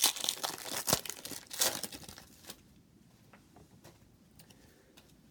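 Trading card pack wrapper crinkling and tearing in a few quick rustling bursts over the first two and a half seconds, then only faint light ticks.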